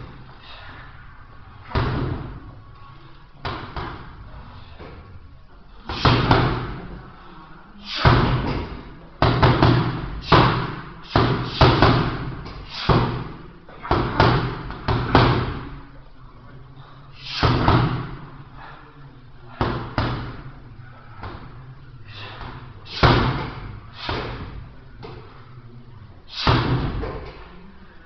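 Boxing gloves punching a hanging heavy bag: irregular single thuds and, in the middle, a quick run of combination blows, each ringing out briefly in a large room.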